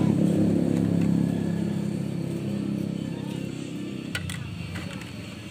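A motor vehicle engine running, its sound fading steadily as it moves away. A couple of sharp clicks about four seconds in.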